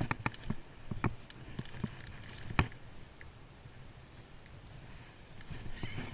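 Spinning rod and reel being worked while reeling in a hooked shark: a few irregular sharp clicks and knocks of the reel and rod, the loudest about two and a half seconds in, over a low steady hiss.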